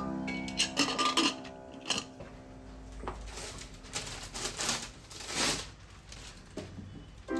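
Light clinks and taps of small hard objects being handled, followed by a series of short hissing swishes, with soft music fading out near the start.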